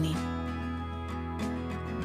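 Background instrumental music: plucked acoustic guitar notes.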